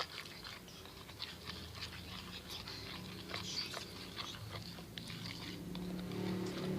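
Glue, soap and 'gom' (borax) activator being stirred in a bowl with a stirrer: a string of small, sticky clicks and squelches as the activator starts turning the glue into slime.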